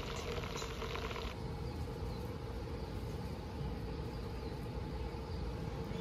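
Steady background hum: a constant mid-pitched drone over a low rumble. A faint hiss in the highs drops away about a second in.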